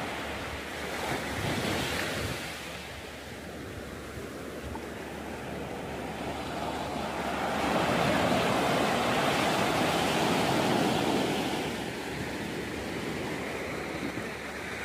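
Sea surf breaking and washing up onto a sandy beach, a steady rush of water that swells louder past the middle and eases again a few seconds later.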